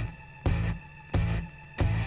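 Background music with a steady, heavy beat, about three beats every two seconds.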